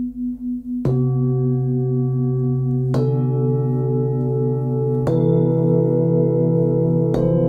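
Hand-forged Tibetan singing bowls from a tuned set, struck one after another with a felt mallet: four strikes about two seconds apart, each bowl's ringing tone layering over the ones still sounding, with a slow pulsing beat in the ringing.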